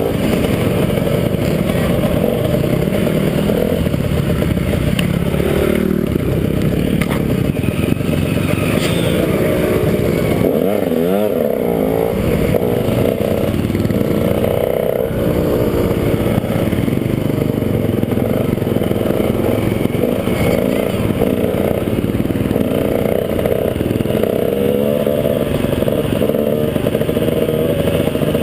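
KTM 150 XC two-stroke dirt bike engine running under load while being raced, its revs rising and falling with the throttle.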